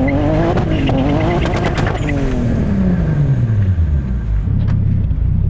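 1995 Toyota Supra's 2JZ straight-six revving hard with the revs wavering during a burnout, then dropping off about two seconds in and settling to a low, steady rumble.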